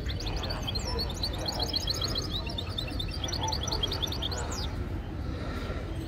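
A small songbird sings a fast, twittering run of short high notes that ends with an upward sweep after about four and a half seconds, over a steady low background rumble.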